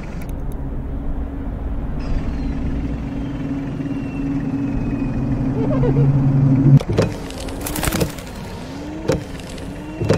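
Toyota Land Cruiser Prado's engine droning steadily and growing louder, then cut off abruptly about seven seconds in. A few sharp clicks and a wavering tone follow.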